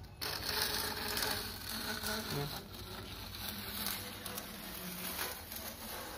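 A mason's steel blade scraping along fresh cement-sand plaster, trimming excess mortar off the edge of a plastered return in a steady rasping scrape that is loudest in the first second or so.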